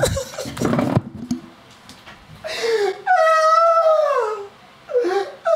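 A man wailing in exaggerated anguish: a long, high, howling cry that bends and falls in pitch, starting about halfway through, with a second cry beginning near the end. It is preceded by a short burst of noise and a knock as he moves.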